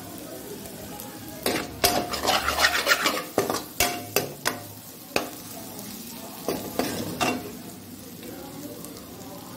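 A metal spoon stirring and scraping prawn masala fry around a metal pan, with a run of clicks and scrapes of metal on metal from about a second and a half in until about seven seconds, over a steady low sizzle. The fry has cooked down almost dry and is nearly done.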